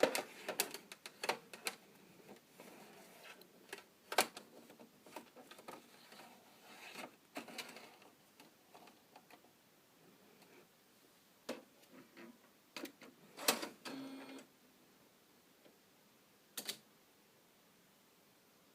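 Epson Stylus Photo R800 inkjet printer's mechanism working as it takes a DVD to print: irregular clicks and knocks with short motor whirs. The loudest click comes about four seconds in, and a longer whir with a low hum comes around thirteen to fourteen seconds in.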